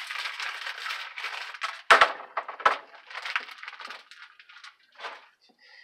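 Plastic wrapping crinkling and rustling as frozen fish fillets are unwrapped by hand, with two sharp hard knocks about two seconds in, less than a second apart.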